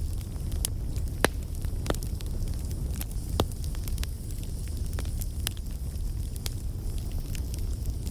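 Wood bonfire burning: a steady low rumble of flame with irregular sharp crackles and pops, a few louder snaps among them.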